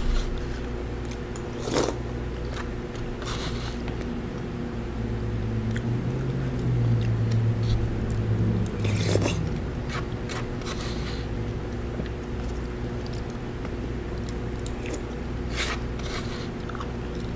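A person eating soup with a spoon: chewing, with scattered clicks of the spoon against the bowl, over a steady low room hum.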